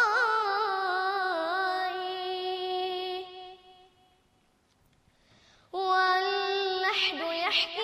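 A high solo voice singing an Arabic nasheed without instruments: a long, ornamented held note that fades out about three seconds in, a pause of about two seconds, then the singing starts again.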